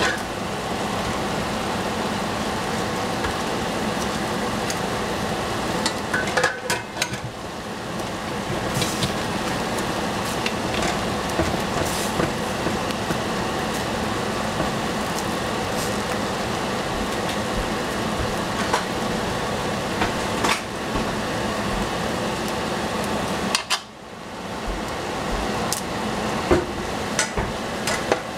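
A table knife scraping and clinking against a stainless steel bowl as broccoli florets are pushed into a saucepan, with scattered metal clinks over a steady hiss.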